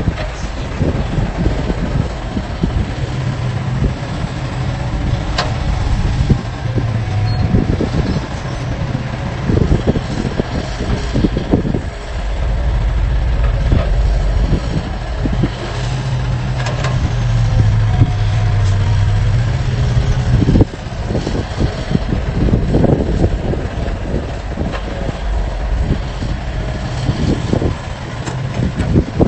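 Hydraulic excavator's diesel engine running under load, working harder twice as the arm and bucket move, with low rumble and occasional sharp knocks from the machine at work.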